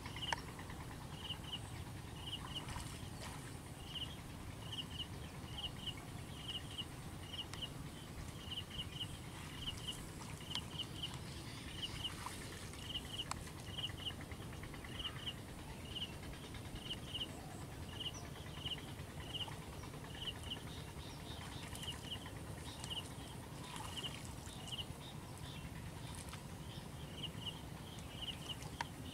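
Outdoor field ambience: a short high chirp, often doubled, repeats about once a second, over a steady low rumble with a few faint scattered clicks.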